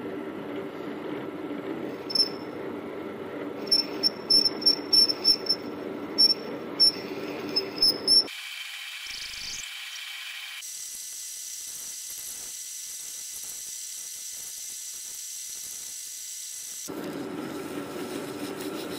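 TSB 20 bench lathe running steadily while turning bronze, with short sharp squeaks from the cutting tool, about two a second, over the first half. About eight seconds in, the sound switches abruptly to a thin, higher steady whine, and the lathe's lower hum returns near the end.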